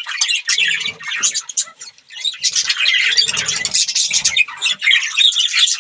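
Budgerigars chattering and chirping without pause, several calls overlapping, with a short lull about two seconds in.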